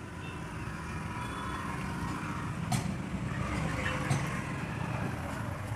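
Steady low mechanical rumble, like outdoor vehicle noise, with two short sharp clicks partway through.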